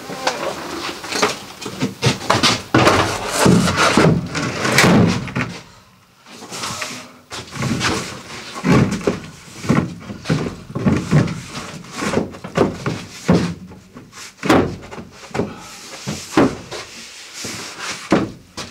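A large plywood wall panel being handled and pushed into place against a narrowboat's cabin side: repeated wooden knocks and bumps, with scrapes of board against the battens and frame. There is a quieter lull about six seconds in.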